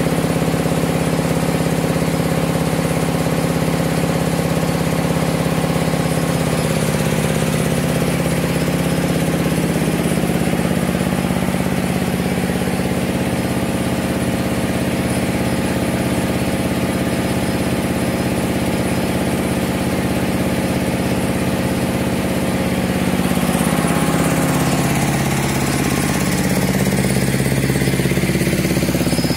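Diesel engine of a rice-milling machine running steadily, with a change in its pitch pattern a few seconds before the end.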